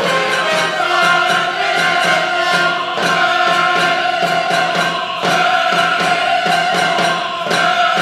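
Choir and orchestra music from an experimental music-theatre work: an opera chorus holding long chords, moving to a new chord about every two to three seconds over a steady pulse.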